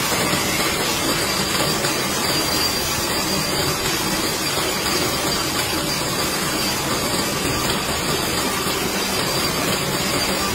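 Belt- and chain-driven bamboo strip-processing machine running steadily, making an even, continuous mechanical noise.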